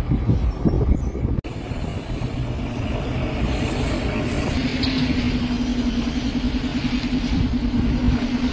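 Passenger buses driving past close by: a loud, rough low engine rumble, settling into a steady droning hum from about halfway through.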